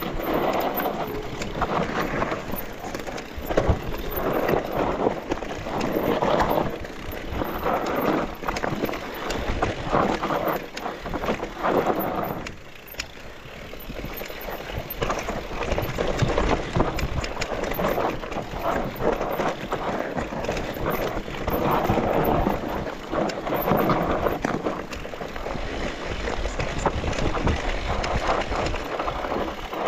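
Mountain e-bike riding over a rough dirt trail: tyres rolling and crunching on the ground, and the bike rattling and clicking over roots and stones, with a steady low rumble. The noise swells and eases every second or two and drops briefly about halfway through.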